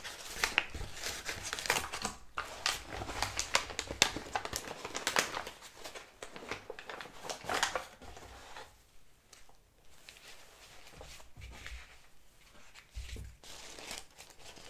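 Paper takeout bag and sandwich paper wrapping crinkling and rustling as hands open the bag and unwrap a sandwich. A busy run of sharp crackles dies down to a quieter patch just past the middle, then more rustling follows near the end.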